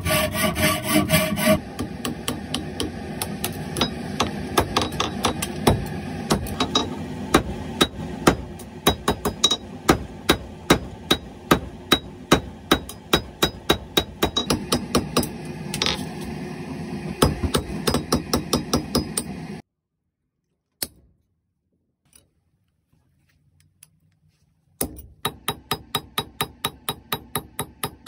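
A hacksaw rasps through copper pipe, then a hammer strikes copper on a steel anvil in steady, rapid blows, about two to three a second. After a near-silent break of a few seconds with a couple of light taps, the quick hammering starts again.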